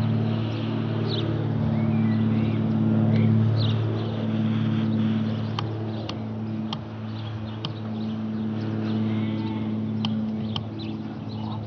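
Cirrus SR22 single-engine piston plane with a four-bladed propeller passing overhead: its engine and propeller make a steady, low, even-pitched drone. The drone is loudest a few seconds in, then slowly fades as the plane flies away.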